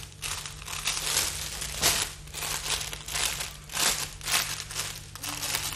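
Foil balloons and their clear plastic wrapping crinkling and rustling as they are handled, in a string of irregular bursts.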